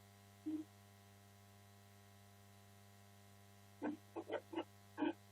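Steady electrical hum. A short voice-like sound comes about half a second in, and a quick run of four or five more comes near the end.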